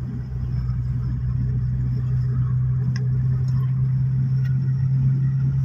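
Steady low drone of a car's engine and road noise, heard from inside the cabin while driving.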